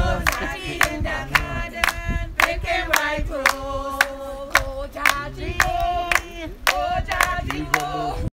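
A group of voices singing together in held, drawn-out notes, with hand claps keeping a steady beat about twice a second.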